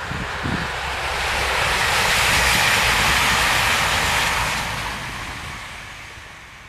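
East Midlands Trains Class 222 Meridian diesel multiple unit passing at speed: a rushing roar of wheels and air that builds, peaks around three seconds in, and fades away as the train recedes.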